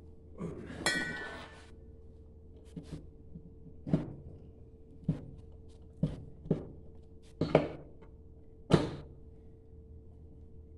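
Honda XR400 aluminium engine case halves being worked together by hand, with the warmed case half being seated over the main bearing. A short scraping clatter comes about a second in, then a string of sharp knocks and thunks at irregular intervals.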